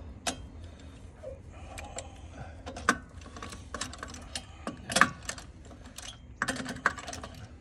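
Hand tools clicking and clinking against metal car parts during a brake-pad change, in irregular sharp clicks. The loudest come about three and five seconds in, with a quick cluster near the end.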